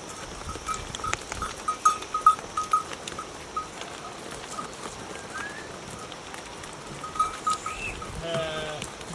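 Small bells on a herd of sheep clinking irregularly as the animals move, with one sheep bleating in a quavering call near the end.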